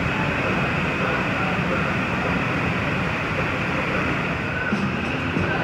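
Steady, continuous roar of a glassblowing studio's gas furnace and burners running.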